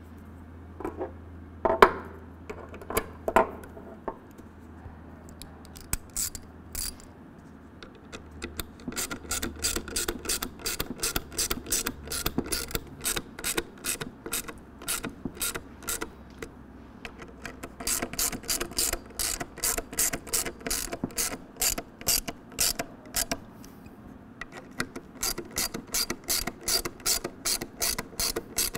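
Hand ratchet with a T25 Torx bit clicking as it runs screws down into a power-step motor's plastic gear housing. The clicks come at about three a second, in three runs with short breaks between screws, after a few separate knocks at the start.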